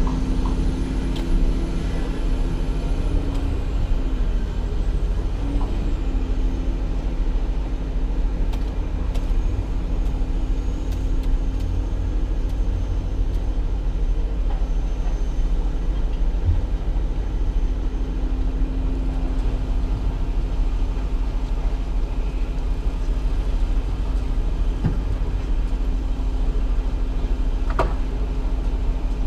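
Vehicle engine running steadily: a constant low rumble with a steady hum.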